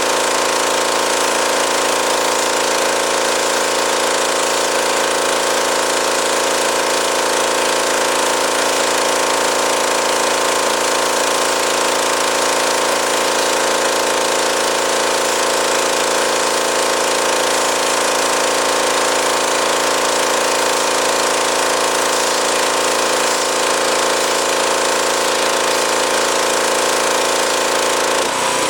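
Pressure washer running steadily under load, a constant machine drone with the hiss of the high-pressure water jet spraying a carpet car mat. Its note shifts abruptly right at the end.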